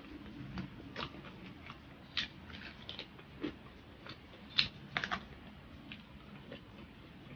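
Close-up crunching and chewing of crispy fried pork skin: irregular sharp crackles from bites and chews, the loudest coming in a cluster about four and a half to five seconds in.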